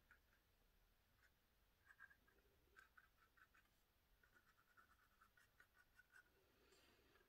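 Near silence, with faint scattered ticks and scratches of a fine paintbrush dabbing gold watercolour paint onto embossed black card.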